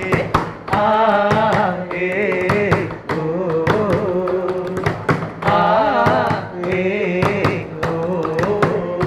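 A man singing an Indian classical, Carnatic-style melody in phrases with sliding, wavering notes, over quick percussive strikes.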